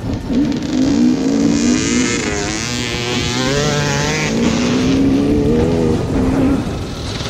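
On-board sound of a KTM EXC enduro motorcycle's engine riding under way, its revs rising and falling with throttle and gear changes, over a steady rush of wind on the microphone.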